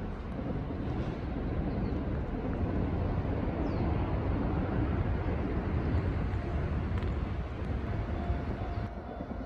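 Low, steady rumble of distant vehicles that swells slightly and eases off near the end, with a faint thin tone in the last few seconds.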